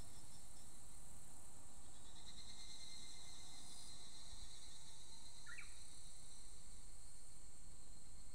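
Higurashi cicadas calling: a steady, high, rapidly pulsing chorus, with one cicada's call coming in stronger about two seconds in and fading a few seconds later. One short bird note sounds about five and a half seconds in.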